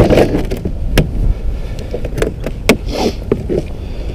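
Hard plastic Otter rod case being opened and a rod lifted out: a series of sharp plastic clacks and knocks from the lid and case, the loudest at the very start, then one about a second in and several more close together past the halfway point.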